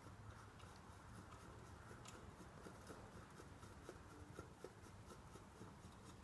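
Near silence, with faint rubbing and scattered light clicks of an oil filter being screwed onto the engine by hand.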